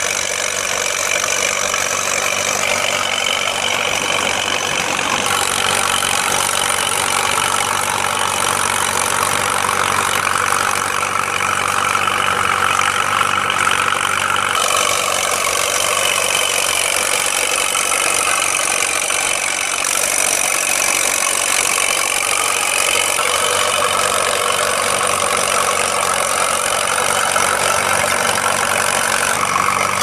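Allis-Chalmers WD tractor's four-cylinder engine running steadily under load as it pulls a two-furrow plough through the soil, with a few abrupt shifts in tone.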